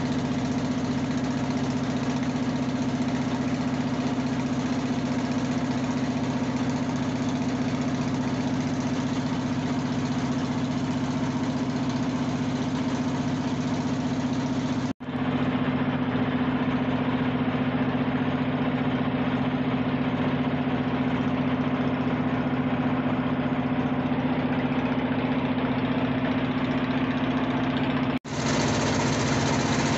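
Fishing boat's engine running at a steady, even drone. The sound cuts out for an instant about halfway through and again near the end.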